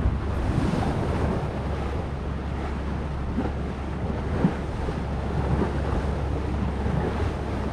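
Wind buffeting the microphone in a steady low rumble over the rush of sea water around a small boat, with one light knock a little past halfway.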